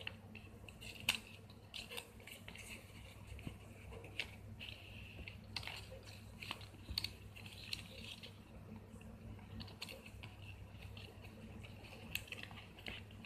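Paper and card flaps of a handmade greeting card being folded and pressed by hand: light crinkling and rustling with scattered small clicks and taps.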